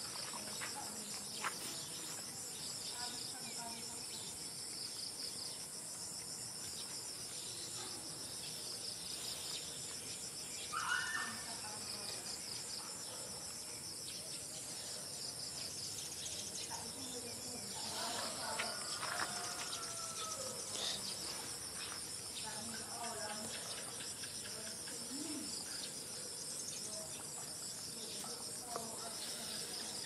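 Steady high-pitched insect chorus of crickets or cicadas chirring, with a few faint bird chirps and one brief louder sound about eleven seconds in.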